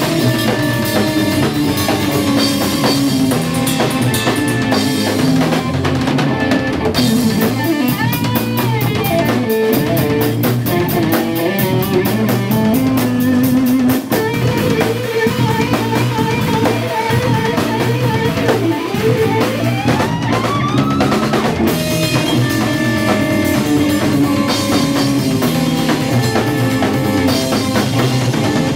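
Live instrumental jazz-rock fusion band playing: electric guitar lead over bass and a full drum kit. Fast, even cymbal strokes run through the middle, and a long rising note comes about two-thirds of the way through.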